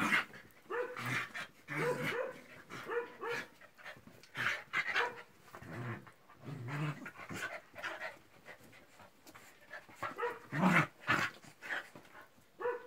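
Dogs play-wrestling on a bed, giving short growls and yips in irregular bursts with panting between them.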